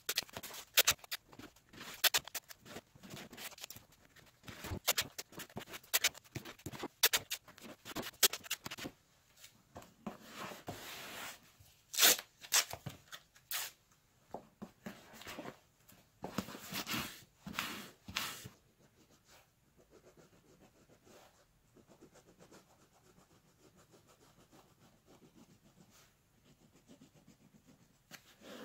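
Hands working upholstery pattern material: irregular rustling, scraping and sharp clicks, busy at first and dying down to faint handling sounds about eighteen seconds in.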